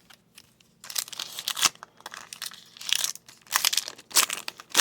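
Plastic wrapper of an Upper Deck hockey card pack crinkling as it is handled and opened, in irregular bursts starting about a second in.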